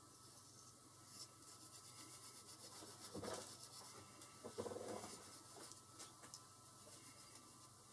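Faint scratching and rubbing as small brass lock pins are cleaned by hand, louder in two short stretches near the middle, with a few light ticks.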